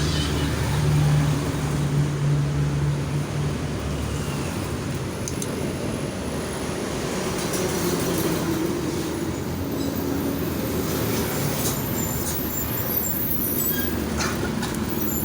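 A motor vehicle engine running, a steady low hum whose pitch shifts now and then, with scattered light clicks.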